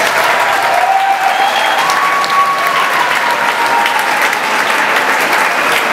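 Audience applauding steadily at the end of a jazz band piece.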